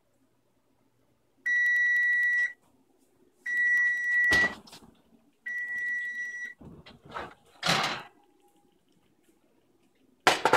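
Frigidaire oven's timer beeping three times in one steady high tone, each beep about a second long and two seconds apart: the 15-minute bake timer has run out. After it come a thump, clattering and sharp knocks near the end, as the oven is opened and the metal muffin tin is taken out and set on the cooktop.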